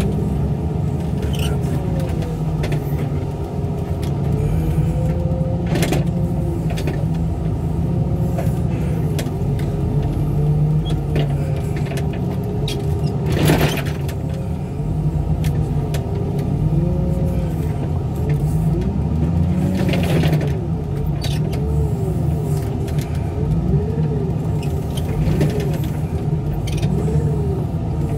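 Heavy machinery's diesel engine running steadily under load, with a hydraulic whine that rises and falls as the machine works. A few metal knocks cut through, the loudest about halfway through.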